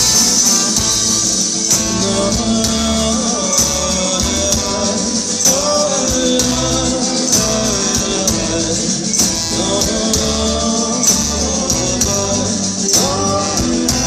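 Live band playing an instrumental passage, with no singing: a strummed ukulele, a melody line over it, steady percussion and a pulsing bass.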